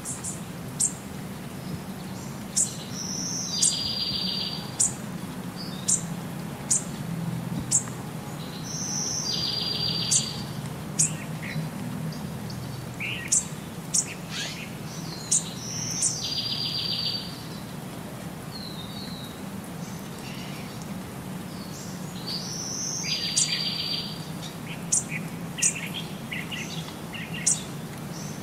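Small birds chirping: short sharp high chirps with a buzzy trill that comes back about every six or seven seconds, over a low steady hum.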